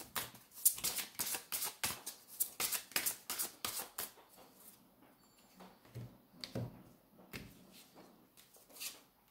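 Tarot cards being shuffled by hand: a quick run of soft papery clicks for about four seconds, then only a few scattered taps of the cards.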